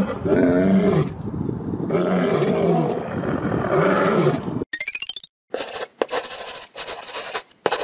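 Lion roaring: three deep, rumbling roars in a row that rise and fall in pitch, stopping sharply about four and a half seconds in.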